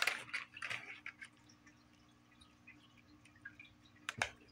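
A cat's turbo ball toy, a plastic ball in a circular plastic track, rattling and clicking as the cat bats at it, with a cluster of knocks in the first second and one sharp click a little after four seconds. A faint steady low hum lies underneath.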